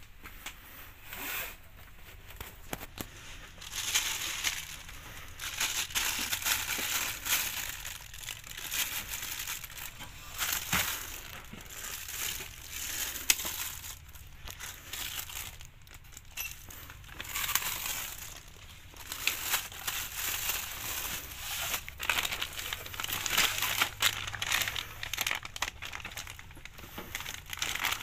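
Clear plastic bags crinkling and rustling in irregular bursts as bagged welding cables are handled and moved about.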